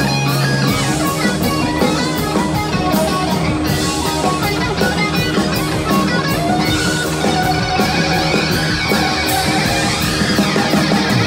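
Live rock band playing loud: electric guitars, among them a Flying V, over electric bass and a drum kit.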